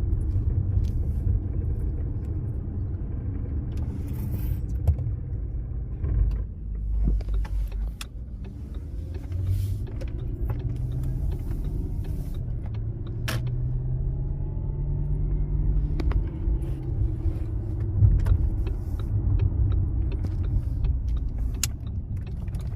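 Audi A8 running, a steady low rumble with scattered sharp clicks and knocks, and a low pitch that rises and falls a little in the middle. This is the strange noise the owner is recording.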